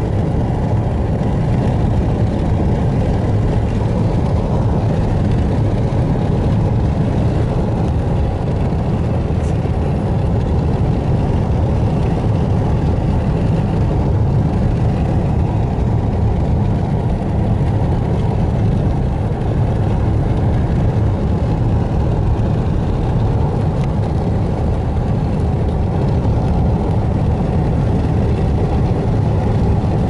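Steady rumble of a car driving at speed on a paved road, the engine and tyre noise heard from inside the cabin.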